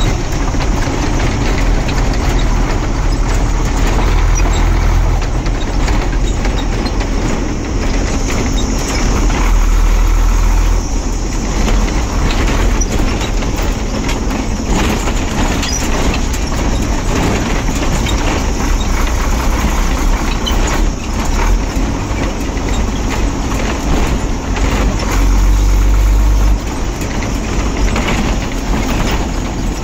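1996 Ashok Leyland 1611 Comet Super truck's diesel engine running under way, heard from inside the cab, with a deep steady drone that swells a few times.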